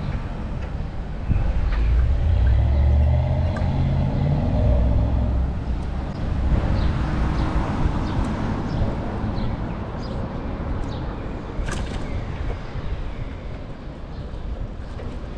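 Street traffic and road noise heard from a moving bicycle, with wind rumbling on the action camera's microphone. A sharp click comes near the end.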